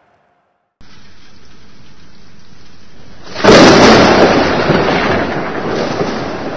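Storm sound: steady rain hiss starts just under a second in, then a loud thunderclap breaks about three and a half seconds in and rumbles away slowly.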